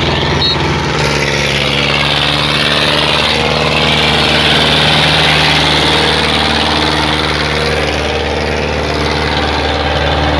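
HMT 5911 tractor's diesel engine running hard under heavy load as it drags two disc harrows in a pulling contest: a steady, loud engine drone.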